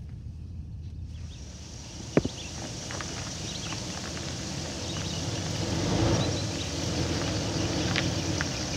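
Old sedan driving up on a road, its engine and tyre rumble growing louder to a peak about six seconds in, over a steady high hiss of outdoor ambience. A sharp click sounds about two seconds in.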